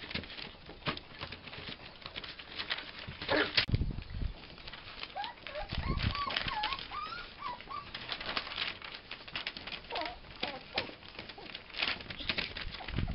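Schipperke puppies scuffling over newspaper and a tarp, with the paper crackling and paws scrabbling, and a few short, wavering high whines in the middle.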